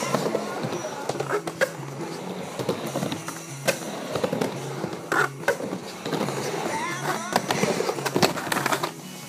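Skateboard wheels rolling and rumbling on a wooden halfpipe, with sharp clacks and knocks of the board on the ramp, over music. About eight seconds in comes a burst of loud knocks as the rider comes off the board and falls on the ramp.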